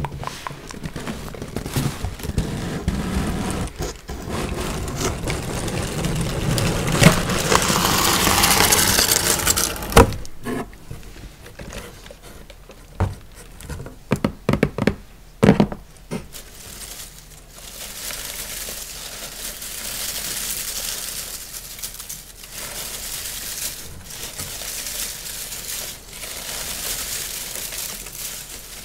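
Cardboard box being handled and opened close to the microphone, with a sharp click and a few short knocks about midway. Then shredded kraft-paper filler rustles and crinkles as fingers dig through it.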